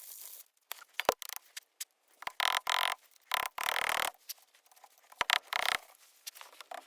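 Irregular scraping and rubbing strokes, each under a second long, with a couple of sharp clicks.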